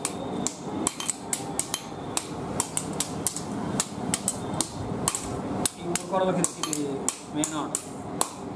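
Hand hammer forging a red-hot steel billhook blade on an anvil: quick, regular metal-on-metal blows, about three a second.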